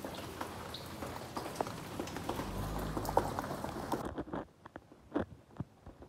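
Light rain pattering on a wet brick-paver driveway, with individual drips clicking through the hiss. About four seconds in the steady hiss cuts off suddenly, leaving only scattered single drips.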